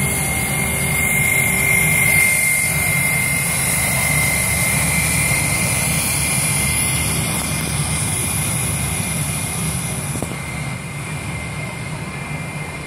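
Airbus A320 jet engines running as the airliner turns and rolls away down the runway: a steady high whine over a low rumble, fading a little near the end.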